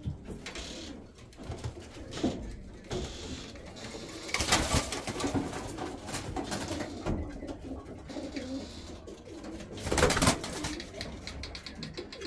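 Domestic pigeons cooing inside a loft, a low cooing that goes on throughout. There are two louder bursts of noise, one about four to five seconds in and one about ten seconds in.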